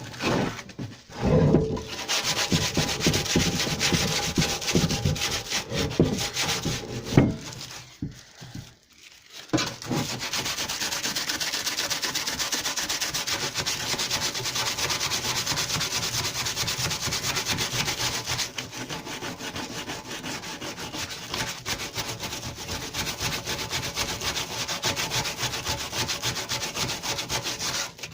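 Sanding on the lawnmower deck, most likely smoothing the hardened metal filler. Irregular rubbing strokes for about the first nine seconds, then, after a brief pause, a steady, continuous sanding noise.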